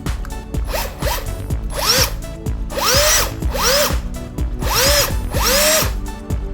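Bosch cordless drill triggered in about six short bursts, its motor whine rising and falling each time. The later bursts are longer. Background music with a steady beat runs underneath.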